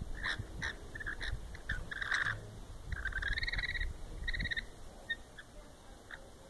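Rainbow lorikeets calling softly while touching beaks: a quick run of short squeaky chirps, a harsher squawk about two seconds in, then a buzzy trilled call that bends slightly upward and a shorter trill after it, with a few faint chirps near the end.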